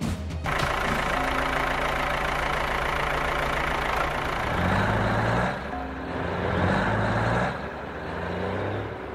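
Heavy truck engines running, as a cartoon sound effect. The engine pitch rises twice in short revs, near the middle and again a second later, then drops back to a lower steady running sound.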